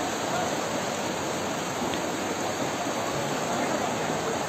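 Fast-flowing muddy flash-flood water rushing down a street, a steady, even rushing noise.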